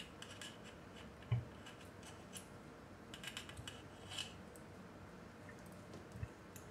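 Faint clicks and taps of steel needle-nose pliers working inside a small aluminium enclosure, with a dull knock about a second in and another near the end.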